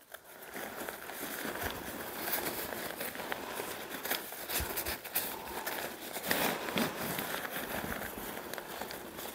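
Pop-up tent fabric and rain cover rustling and crinkling as the folded bundle is handled and tied up by hand, a steady rustle with many small crackles.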